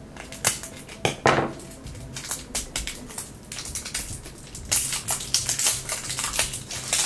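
Scissors cutting the plastic shrink wrap on a toy blind capsule, then the film crinkling and crackling as it is peeled off by hand, with clicks of the hard plastic capsule being handled. The crinkling is densest and loudest from about five seconds in.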